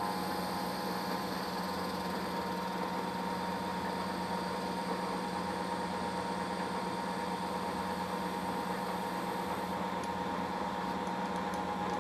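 Lathe running at a steady speed while turning a nylon bar, a steady motor hum with a whine over it.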